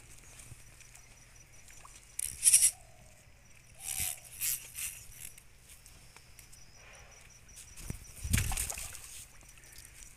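Hooked rohu fish splashing in shallow water at the bank in a few separate bursts, the heaviest and deepest near the end, as it is brought in to be landed.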